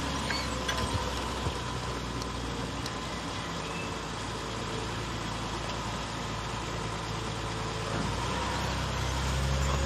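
A car engine running steadily, a low hum that grows a little louder about eight seconds in.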